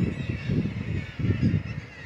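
Birds calling in quick runs of low, rough calls, loudest in the first second and again around a second and a half in, with faint high chirping from smaller birds behind.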